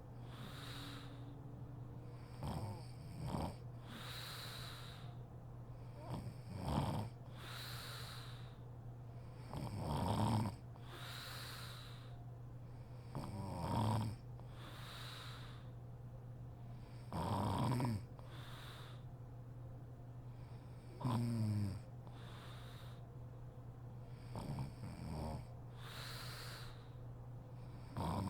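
A sleeping woman snoring in a slow, regular rhythm, about one snore every three and a half seconds: each loud, rattling snore is followed by a softer, breathy exhale.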